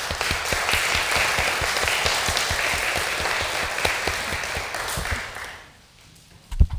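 Church congregation applauding, a dense clatter of many hands that fades out after about five and a half seconds. A couple of low thumps follow near the end.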